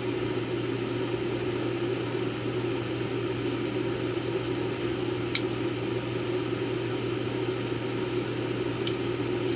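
Steady low mechanical hum, with two short sharp clicks about five and nine seconds in.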